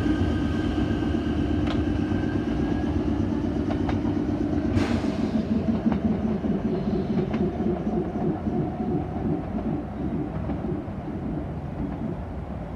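E3-series Toreiyu Tsubasa shinkansen pulling out and moving away: a steady whine fades out over the first few seconds, leaving the wheels rumbling and clattering over the rails and slowly growing fainter. One sharp click about five seconds in.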